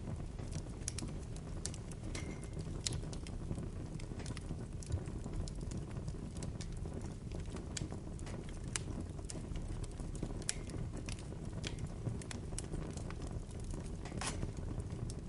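Bonfire crackling: irregular sharp snaps and pops of burning wood over a steady low rush, with one longer, louder pop near the end.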